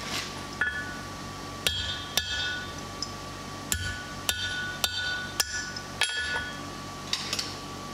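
Hand hammer striking a hot mild-steel bar laid over a hardy on the anvil to cut off its surplus end: about eight sharp, ringing metal blows in uneven groups, each with a bell-like ring from the anvil.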